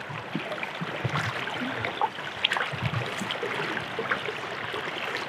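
River current flowing and lapping around people wading in it, with scattered small splashes and ticks.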